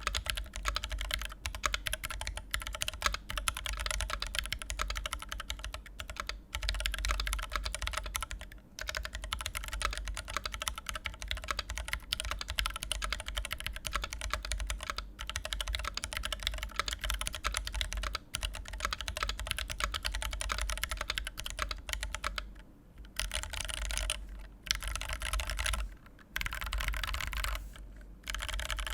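Custom mechanical keyboard with a thick brass plate, Dragonfruit switches lubed with 3204 and fitted with Durock films, and Zeal stabilisers, typed on fast and continuously: a dense stream of key clacks. It breaks into short bursts with brief pauses over the last several seconds.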